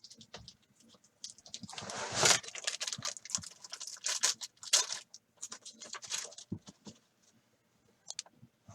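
Handling noises: a run of light clicks and taps, with a short, louder rustle about two seconds in.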